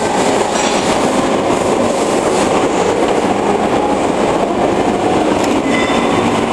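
MIG-MAG welding arc running steadily, a loud continuous noise with no breaks.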